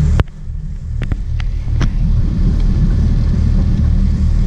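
Sportfishing boat's engines running in a steady low rumble. A few sharp clicks come in the first two seconds, and the sound dips briefly just after the first one.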